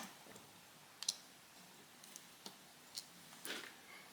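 A few faint, separate clicks and taps of small tools and parts on a Samsung Galaxy S6 edge's frame, spaced about a second apart, as its circuit board is taken out.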